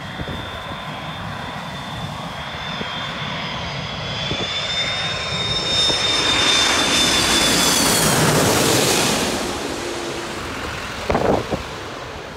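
Large jet airliner on final approach passing low overhead: a high engine whine and roar build to a peak about eight seconds in, then fade away towards the runway. A couple of short bumps near the end.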